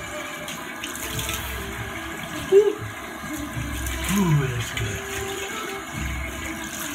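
Bathroom sink tap running while cold water is splashed on the face to rinse after a shave, with a couple of short vocal sounds in the middle.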